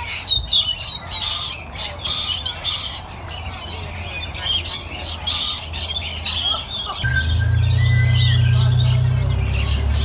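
Lorikeets screeching, a run of harsh, repeated squawks. About seven seconds in, a low steady drone comes in under them, and the calls thin out.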